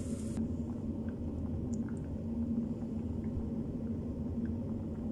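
Steady low kitchen rumble with a hum, broken only by a few faint small ticks.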